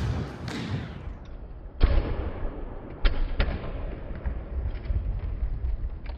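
Kick scooter wheels rolling and rumbling over wooden skatepark ramps, with several sharp clacks of the scooter hitting the ramp surface. The loudest clacks come about two seconds in and twice around three seconds in.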